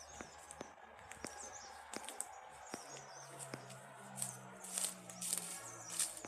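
Small birds chirping in short, repeated high-pitched calls, louder about four to six seconds in.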